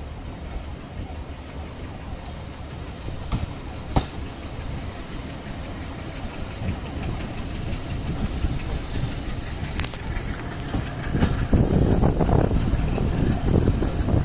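Local passenger train running on broad-gauge track, a steady low rumble of wheels on rail with two sharp clicks a few seconds in. The rumble grows louder near the end.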